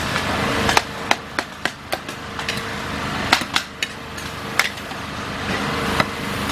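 A metal ladle and spatula clanking and scraping against a huge wok as a cook stir-fries rice vermicelli. The clanks come in irregular strokes, about a dozen of them, over a steady hiss.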